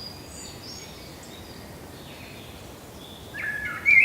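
Forest birds singing and chirping faintly over a steady background hiss of woodland ambience, with a louder bird breaking in with a run of calls near the end.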